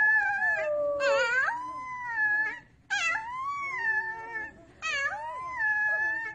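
Wolf pup howling: three long, high howls with two short breaks between them, each rising and then held, the first with a quavering wobble partway through.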